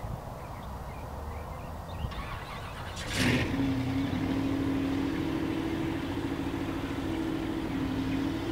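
Chevrolet 454 big-block V8 on an engine dyno, running naturally aspirated with its quad-turbo plumbing unboosted. A steady low rumble is followed about three seconds in by a sharp burst, after which the engine runs louder with a steady tone.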